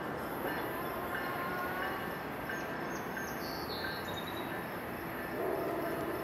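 A passenger train running steadily through the station, with thin high squeals coming and going over it.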